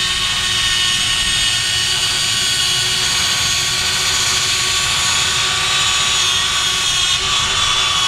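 Whine of the electric track-drive motors and gearboxes of two remote-control toy excavators running at full speed.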